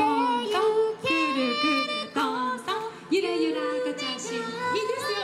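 Women's voices singing without instruments, gliding between pitches and holding some notes for about a second.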